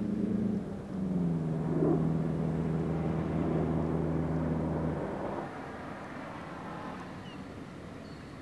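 A vehicle engine running with a steady hum that settles a little lower in pitch about a second in, then cuts out about five seconds in, leaving a fainter steady rush.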